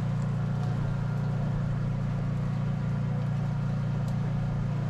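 Boat engine running with a steady low hum.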